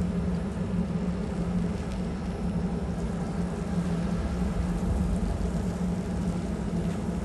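Codecasa motor yacht's diesel engines running at low power while manoeuvring astern: a steady low hum with one held tone over a low rumble.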